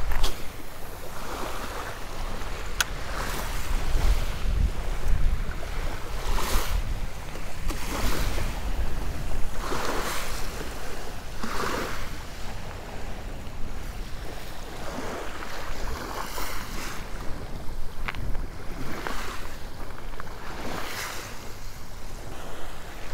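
Small waves washing in and breaking every second or two on a shell beach, over a steady low rumble of wind buffeting the microphone. Two single sharp clicks stand out, one about three seconds in and one near the end.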